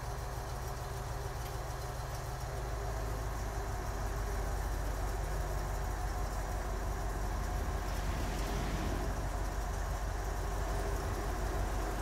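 A heavy engine running steadily with a low rumble, growing a little louder about three to four seconds in, as the crane lifts a crate off the truck.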